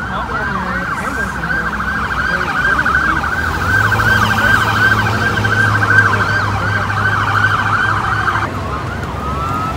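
Police car sirens wailing, rising and falling over and over, speeding up into a fast yelp in the middle before cutting off about eight and a half seconds in, over freeway traffic.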